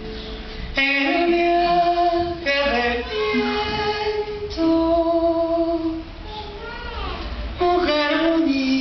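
A woman singing a Venezuelan pasaje in long held notes with short breaks between phrases, the accompaniment barely heard.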